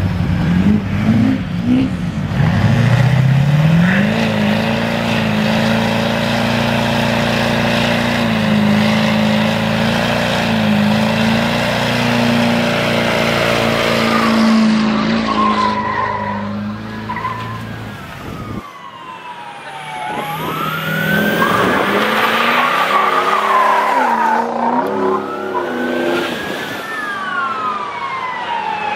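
Diesel pickup truck engine revving up about two seconds in and held at high revs for some fifteen seconds. The sound then drops away, and in the last eight seconds or so a police siren wails up and down over the engine.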